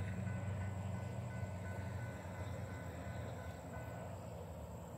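Low rumble of a train on the line, fading steadily as it moves away. A thin high beep repeats about two or three times a second and stops about four seconds in.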